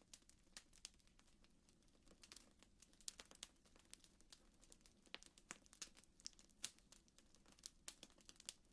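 Faint fireplace crackling: scattered, irregular small pops and ticks, a few each second, over a faint low hum.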